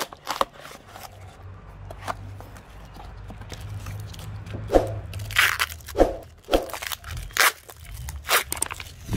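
Taped paper parcel wrapping being torn open and handled: irregular crinkling, crackling and tearing of paper and packing tape, busiest in the second half.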